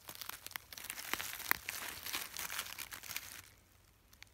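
Footsteps crunching and crackling through dry leaf litter and twigs on a forest floor, stopping about three and a half seconds in.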